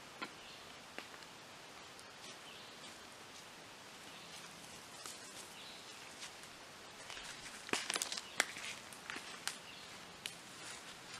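Quiet pine-woods ambience: a faint steady hiss with scattered light clicks and snaps, and a short cluster of louder snaps about eight seconds in.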